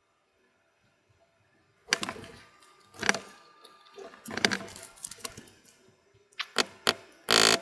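Mallet blows on a leather-tooling stamp or beveler pressing into a leather collar strap: a few single knocks about a second apart, then quicker, louder strikes near the end.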